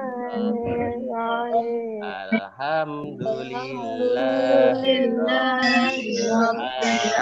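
Children and a man chanting a morning prayer together in a sing-song recitation over a video call, several voices overlapping.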